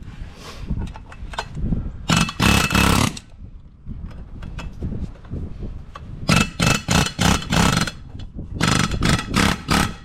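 Pneumatic air hammer rattling against the steel sleeve of a Ford Super Duty track bar bushing, driving out its center section. It fires in three goes: one about two seconds in, then a run of short bursts about six seconds in, and another near the end.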